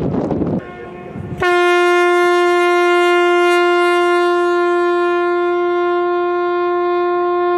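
Ship's horn sounding one long, steady, unbroken blast that starts faintly and comes in loud about a second and a half in, with wind buffeting the microphone before it.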